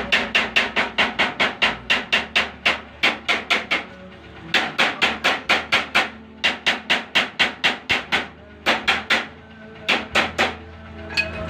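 Hammer striking metal in quick runs of blows, about four to five a second, with short pauses between the runs.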